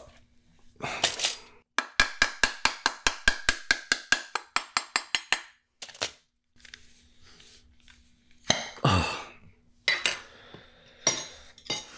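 Glass salsa jar being opened by hand: a short rasp, then a fast, even run of about twenty clicks over three to four seconds as the lid is worked. About eight and a half seconds in comes a louder scrape, with a few clinks of glass near the end.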